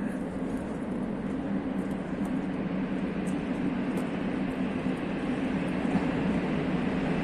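Train running at the station: a steady low drone over a rumbling hiss, growing slowly louder as it comes closer.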